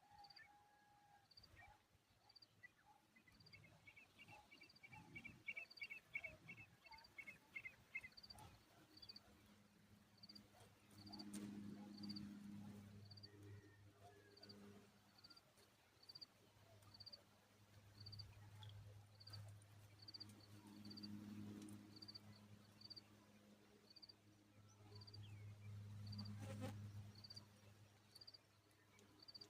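Faint outdoor ambience. A high chirp repeats about once a second throughout, a rapid trill runs for a few seconds early on, and a low hum swells now and then.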